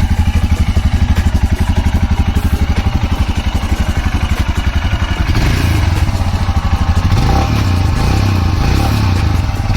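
Royal Enfield Himalayan BS6's 411 cc single-cylinder engine idling just after starting, a loud, steady thump at about eight beats a second. It comes through the stock exhaust with a catalytic converter, which the owner says makes it a little quieter than the older BS4 model.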